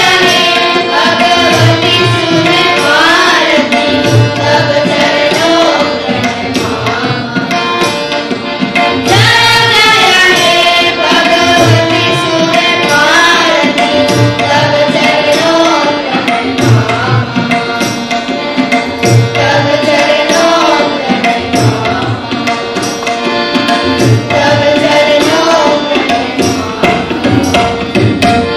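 Group of children singing a song together, a girl's voice prominent at the start, over a regularly beaten hand drum and a steady held note underneath.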